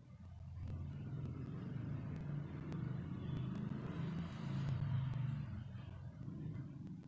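A road vehicle passing by: a low engine rumble with a hiss above it that swells, is loudest about four to five seconds in, then fades.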